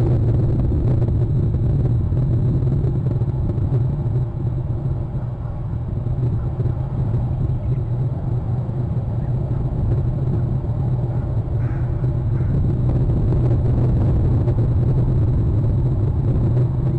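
Steady, loud low rumble that hardly changes, with two faint brief higher sounds a little past the middle.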